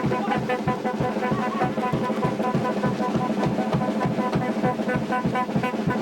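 Upbeat music with brass over a steady drum beat, about four beats a second.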